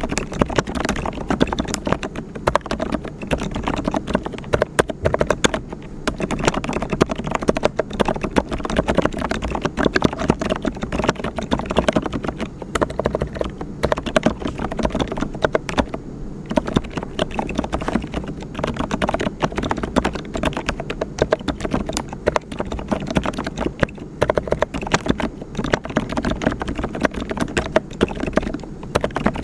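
Mechanical keyboard with brown (tactile) switches being typed on, a fast steady stream of key clacks broken by a few short pauses.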